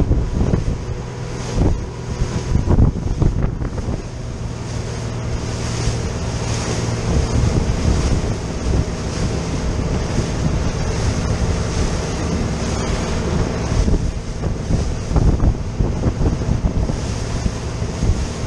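A RIB running at speed: wind buffeting the microphone and water rushing along the hull over the steady drone of its engine. There are a few knocks from the hull hitting the chop in the first few seconds.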